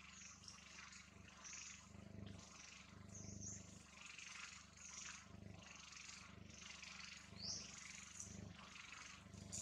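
Faint, repeated short high-pitched animal calls over a low steady hum, one call rising in pitch near the end.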